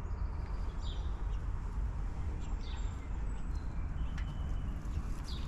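Small bird chirping: about five short, high, falling chirps a second or so apart, over a steady low outdoor rumble.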